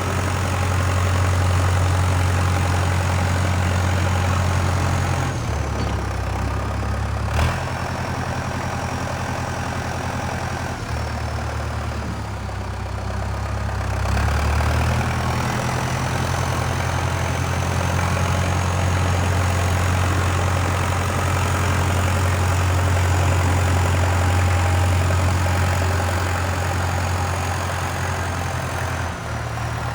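Backhoe loader's diesel engine running, its note dropping and picking up again a few times as it works, with a thin high whine that glides down and back up. There is a single knock about seven seconds in.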